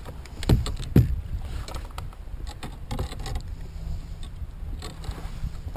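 Two sharp, hollow knocks within the first second, typical of gear such as a landing net striking a plastic sit-on-top kayak, then steady low wind and water noise with scattered light clicks.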